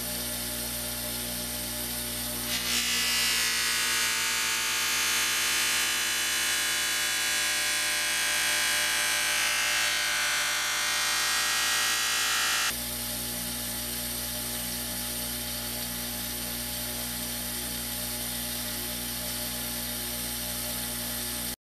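Bench grinder with a buffing wheel running with a steady motor hum. About two and a half seconds in, the forged steel draw knife is pressed against the spinning wheel, adding a hissing rub of buffing that stops suddenly about halfway through, leaving the motor's hum alone.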